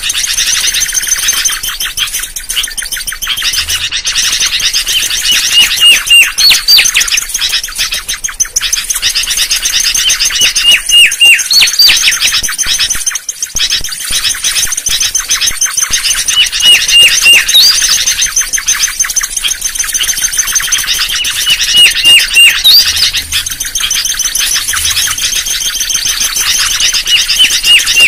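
Mangrove whistler song: a phrase of a few short whistled notes ending in a sharp rising whistle, repeated about every five seconds over constant rapid chirping.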